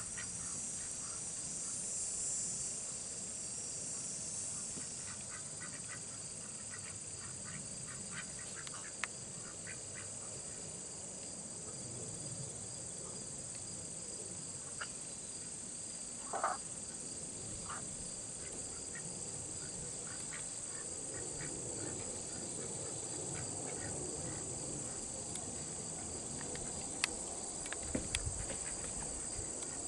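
Steady high-pitched insect chorus, with Pekin ducks giving scattered short, soft quacks and one louder call about halfway through. A few sharp clicks near the end.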